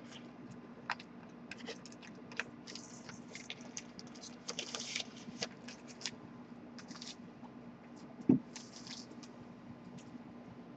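Crinkling and rustling of a clear plastic bag and laserdisc jackets being handled, with scattered small clicks, a longer rustle near the middle and one dull thump about eight seconds in.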